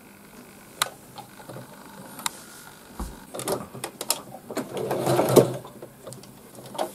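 Domestic sewing machine being worked: scattered clicks, then a short, uneven run of stitching and mechanism noise about halfway through, as folded stretch-fabric cord loops are sewn under the presser foot.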